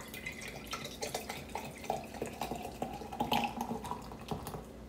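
A fizzy amber drink poured from a glass bottle into a wine glass, foaming as it fills. The stream splashes and the bottle neck glugs irregularly.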